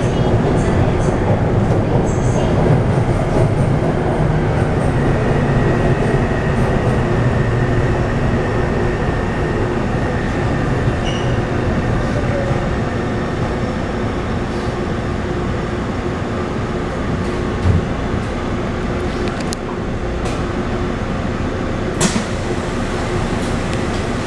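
Taipei Metro C301 metro train with retrofitted propulsion running, a steady drone of wheels on rails with a constant whine from its traction inverter, the unusual inverter noise of this retrofitted set. It grows gradually quieter, with two sharp clicks near the end.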